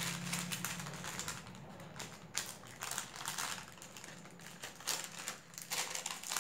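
Butter paper crinkling and rustling as it is folded and wrapped by hand around an egg roll, in irregular quick crackles.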